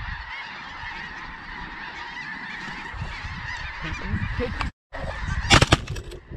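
Large flock of snow geese calling overhead, a dense steady chorus of honking. Near the end the sound cuts out for a moment, then shotguns fire several times in quick succession.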